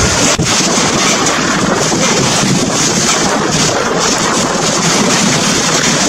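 Storm wind and heavy rain making a loud, steady rushing, with gusts buffeting the microphone.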